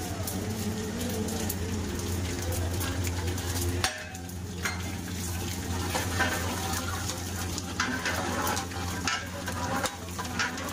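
Cumin seeds and dried red chillies sizzling and crackling in hot oil in an aluminium pot as a tadka tempering. A long metal ladle stirs them and clicks against the pot a few times, over a steady low hum.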